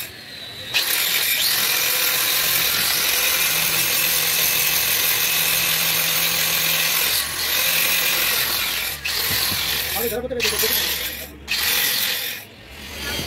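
Electric angle grinder with an abrasive disc grinding rust and old gasket residue off the deck face of a cylinder head, throwing sparks. It is a steady, high, hissing grind that picks up again under a second in, then breaks off briefly a few times near the end as the disc lifts off the metal.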